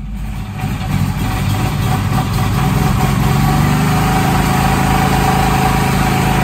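EZ-GO golf cart running under power on a chassis dyno, its drive and the spinning dyno rollers building over the first couple of seconds, then holding steady.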